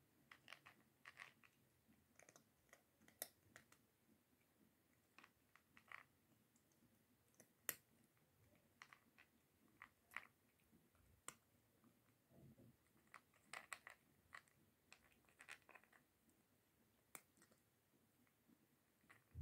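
Cat chewing dry kibble from a plastic bowl: a run of faint, irregular crunches and clicks.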